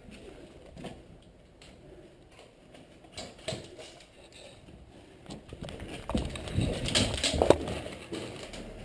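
Footsteps crunching and scuffing over a gritty, debris-strewn concrete floor, with scattered knocks and a louder run of crunching steps about six to seven and a half seconds in.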